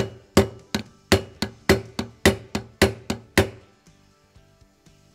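Nylon hammer tapping on the new aluminum stock's grip section, driving the snug part onto the carbine's receiver tang: about a dozen sharp taps, some in quick pairs, that stop about three and a half seconds in. Faint background music continues underneath.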